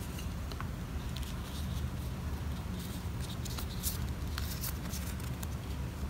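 Light rustling and soft clicks of thin card and paper as a phone box's small instruction cards are pulled apart and handled, over a steady low hum.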